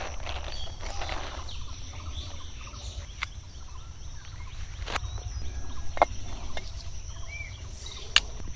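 Outdoor ambience of birds chirping over a steady high hiss and a low rumble, with several sharp knocks; the last, near the end, is a machete chopping wood.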